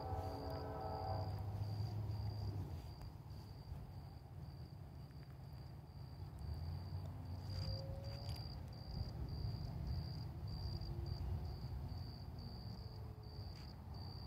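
Insect chirping in a steady high-pitched pulse, about twice a second, over a low rumble from an approaching freight train. A diesel locomotive's multi-note horn is sounding at the start and cuts off about a second in.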